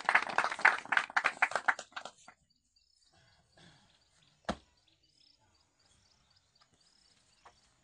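A small group clapping, dying away after about two seconds. Then faint, repeated high chirping, with one sharp knock about four and a half seconds in.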